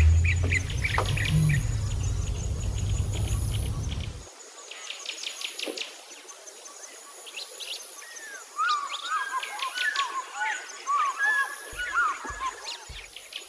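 Low road and engine rumble inside a moving car for the first four seconds, then after an abrupt cut a chorus of wild birds: rapid high chirps and looping whistled songs.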